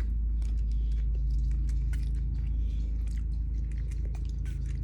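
Close-up chewing of candy, with small wet clicks and ticks of the mouth, over a steady low hum.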